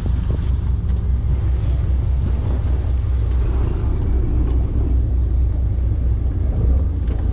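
Steady low rumble of a boat engine idling, with wind noise on the microphone.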